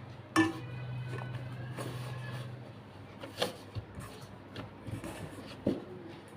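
Kitchen utensils knocking and clinking: one sharp metallic clink with a brief ring about half a second in, then a few scattered lighter knocks, over a steady low hum during the first couple of seconds.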